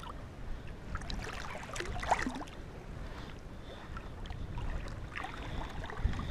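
Shallow river water sloshing and splashing as a released paddlefish swims off from the hand.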